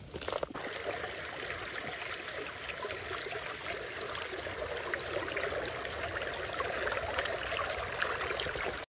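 Steady rush of running water, like a small stream, which cuts off suddenly near the end.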